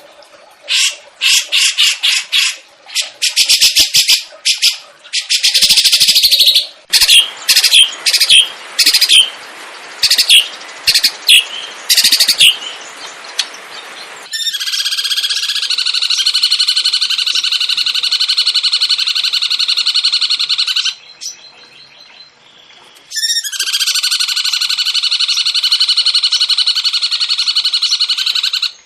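Songbird singing: rapid, harsh chattering notes for about half the time, then two long unbroken rolling trills of several seconds each, separated by a brief pause.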